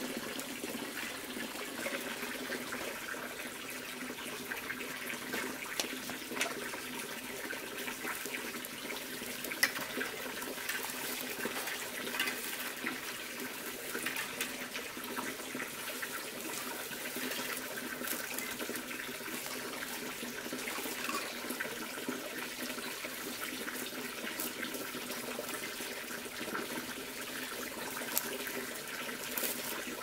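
A steady rush of running water, with soft rustling and small clicks as bundles of dry broom grass are handled and tied, one sharper click about ten seconds in.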